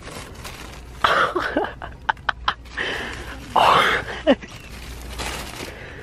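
Plastic-wrapped packs of paper towels and toilet paper rustling and crinkling as they are handled and pushed, with two short bursts of rustling and a few sharp crackles.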